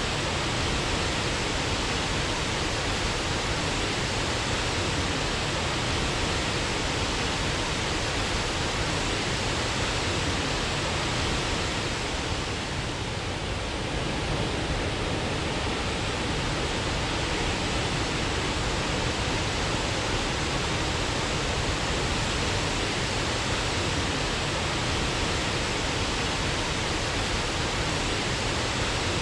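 Waterfall: a steady, even rush of falling water, easing slightly for a moment about halfway through.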